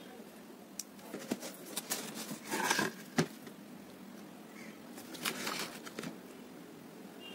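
Precision knife scratching and cutting through a thin OHP plastic sheet, heard as crackly scraping bursts with sharp clicks, loudest around the third second and again around the sixth.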